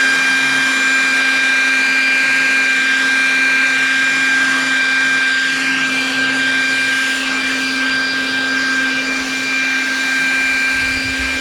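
Leaf blower running at a steady speed, a rushing blast of air with a high steady whine, blowing pine cones and debris off the ground.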